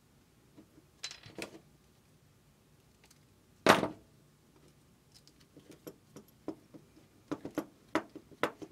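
Hand-handling noises at a wooden workbench: a few small clicks, then one sharp clack as a pair of wire strippers is set down on the bench. A run of small clicks and rattles follows as a plastic wire nut is twisted onto twisted copper ground wires.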